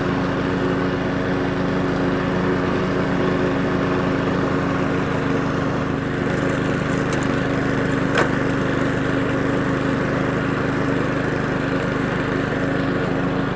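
Powersmart 21-inch self-propelled mower's 209cc four-stroke engine running steadily while cutting grass. A single sharp tick about eight seconds in.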